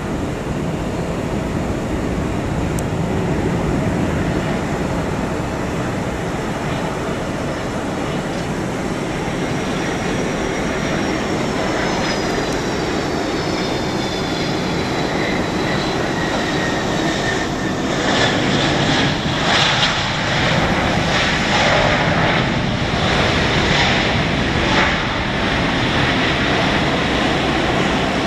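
Boeing 757-200F freighter's twin turbofan jet engines roaring through the landing, with a high whine that falls in pitch as it comes in to touch down. After touchdown the roar grows louder and pulses unevenly as the jet rolls out on the runway.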